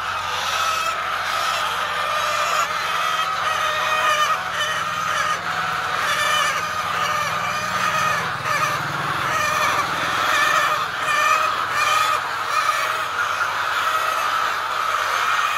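Many birds calling at once in a continuous, overlapping chatter.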